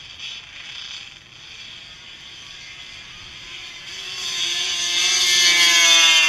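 Drag-racing ATV engines at full throttle, growing louder from about four seconds in and loudest near the end, with the pitch climbing a little and then holding high.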